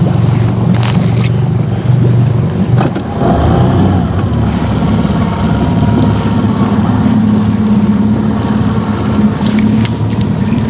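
Boat outboard motor running steadily, its low drone shifting in pitch about three seconds in.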